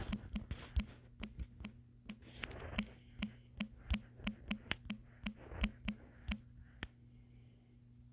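Typing on a computer keyboard: irregular key clicks, a few a second, stopping about seven seconds in, over a steady low hum.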